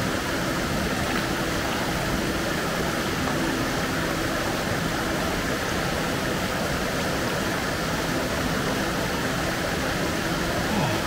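Creek water rushing over a small rock-ledge waterfall: a steady, even rush.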